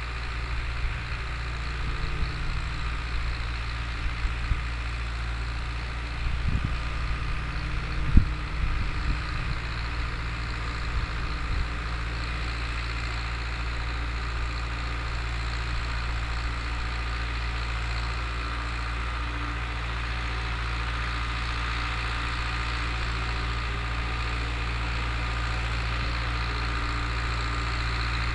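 Long 900 tractor's four-cylinder diesel engine running steadily while pulling a disk harrow. Irregular knocks and rattles come over the first dozen seconds, the loudest about eight seconds in.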